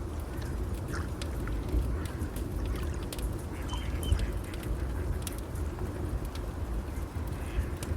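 Layered nature ambience: a wood fire crackling in scattered sharp pops over a steady low rush of water, with birds calling briefly about halfway through.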